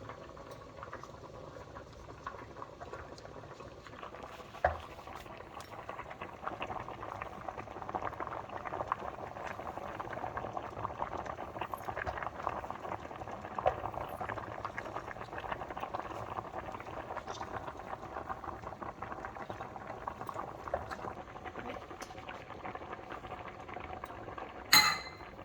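Pot of pasta water at a rolling boil, a steady bubbling, with a few sharp knocks or clinks, the loudest near the end.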